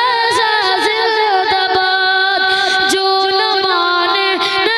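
A boy's solo voice singing a naat into a microphone, winding through short melodic turns and then holding one long steady note from about two seconds in until near the end.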